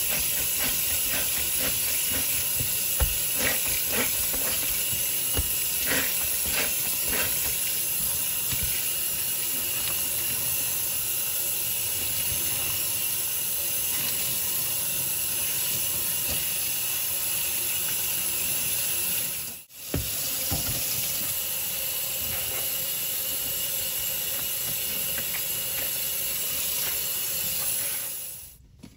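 Kitchen faucet running steadily onto sponges in a stainless steel sink, as hands squeeze and press them to rinse out cleanser paste; squishing and splashing sounds break through during the first several seconds. The water cuts out for a moment about two-thirds of the way through, then fades out just before the end.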